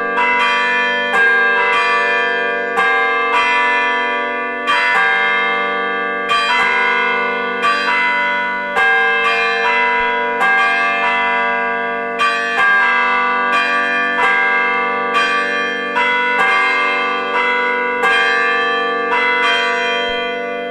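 Church bells ringing a peal, a new strike a little under every second, each note ringing on into the next over a steady low hum.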